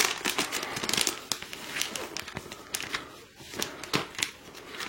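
Packaging and paper inserts from an Apple keyboard box being handled: irregular rustling and crinkling with scattered light clicks and taps.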